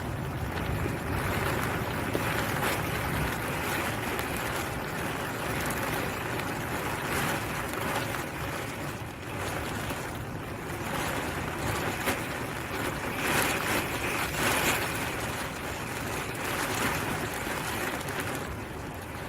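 Strong storm wind blowing against the microphone, a continuous rushing noise that swells in gusts, loudest a little past the middle.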